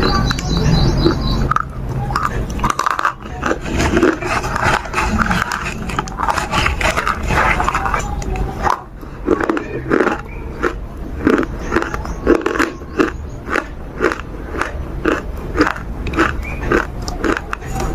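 Close-up chewing and crunching of edible chalk with paste, the bites crackly and uneven at first, then settling into a steady chew of about two strokes a second in the second half.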